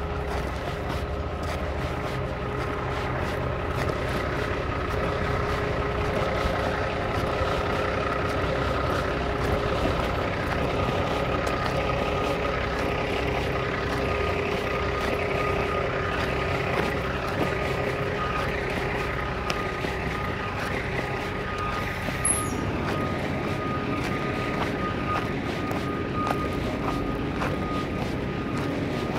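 A parked vehicle's engine running steadily, a constant drone with a steady high whine on top. A brief sharp click about 22 seconds in.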